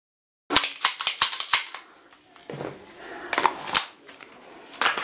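Handgun being handled: a quick run of sharp metallic clicks and clacks about half a second in, then a couple more clicks midway and another cluster near the end.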